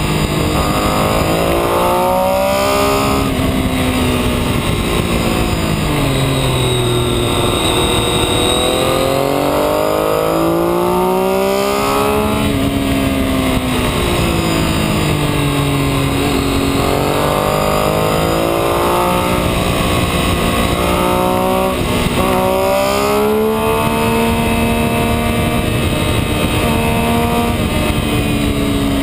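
A vehicle's engine revving up and down while driven hard along a twisting road, its pitch climbing and dropping several times, over a steady rushing noise.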